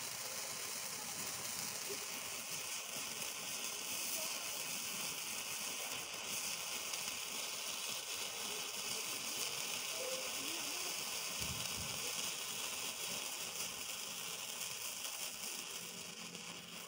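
A 30 cm red sparkler burning in the hand: a steady fizzing hiss with a fine crackle of sparks.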